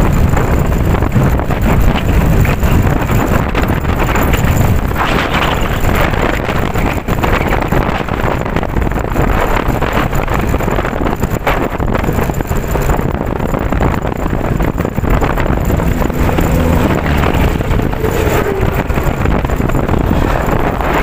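Typhoon wind blowing hard and buffeting the microphone: a loud, continuous rush of noise, heaviest in the low end.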